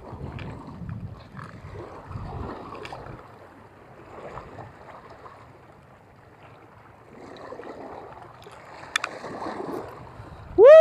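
Sea water lapping against breakwater rocks, with wind buffeting the microphone. Right at the very end a loud, sharply rising and falling pitched sound cuts in.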